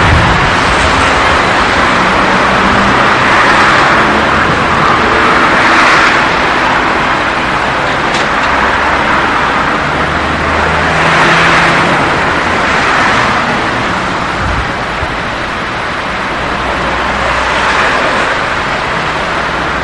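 Engine and road noise of a moving Alfa Romeo 75 1.6 carburettor saloon, heard from the car, swelling and easing several times as it goes.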